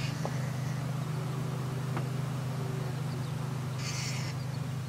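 Distant turboprop transport aircraft on approach, its propellers giving a steady low drone with a fast, even pulse. A brief high rasping chirp, likely a bird or insect, comes about four seconds in.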